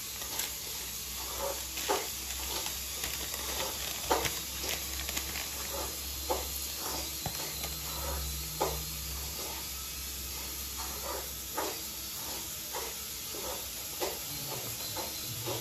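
Irregular light clicks and taps of a spoon against a bowl while paste and spices go onto raw chicken, over a steady hiss. A low hum stops about three-quarters of the way through.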